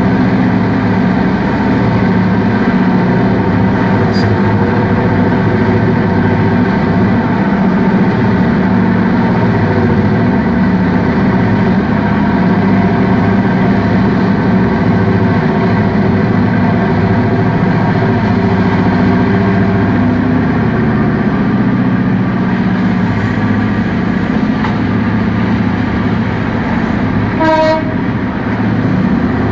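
Terex RH400 hydraulic mining shovel's engines running with a steady, loud drone. A short, high tone comes near the end.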